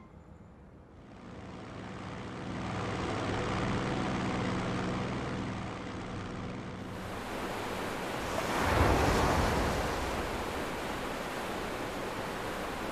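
Helicopters droning over the sea: a rushing wash of wind and waves with a low, steady engine hum. It builds from about a second in and swells to its loudest around nine seconds in.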